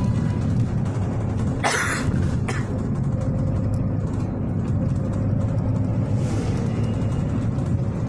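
City bus engine running with a steady low rumble, heard from inside the bus, with a short burst of hiss about a second and a half in and a briefer one just after.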